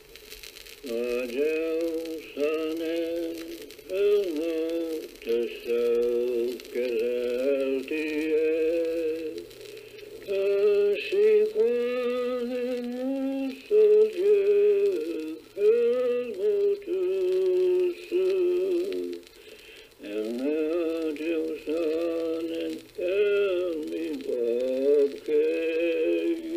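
A man singing a Passamaquoddy song as a single solo voice, in short wavering phrases with brief breaks between them.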